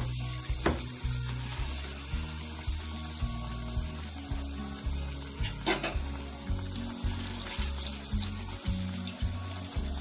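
A gram-flour-battered eggplant slice sizzling steadily in hot oil in a kadai, with scattered crackles. A low background music beat runs underneath.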